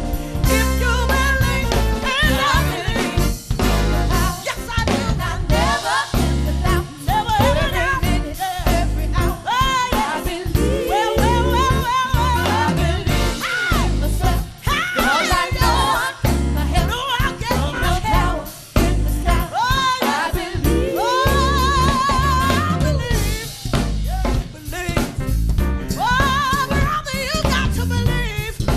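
Live gospel-soul band playing, with a woman singing lead in a wavering vibrato over a drum kit with snare backbeat and bass.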